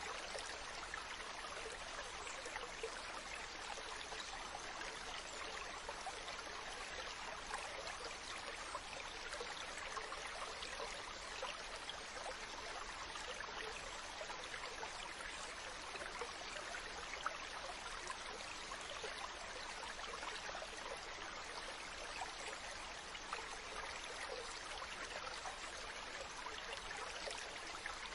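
Water running steadily, a continuous stream-like rush with fine splashing and droplet crackle throughout.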